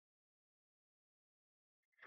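Near silence: the sound track is dead, with no audible sound.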